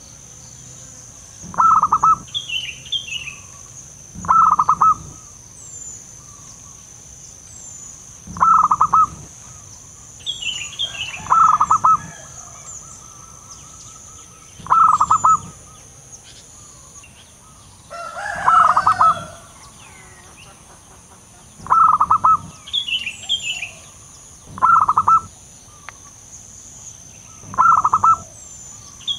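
Wild zebra dove (perkutut) cooing: short bursts of rapid staccato coos repeated about every three seconds, the call used to lure other zebra doves. Fainter, higher chirps of other birds and a steady high whine sit behind it.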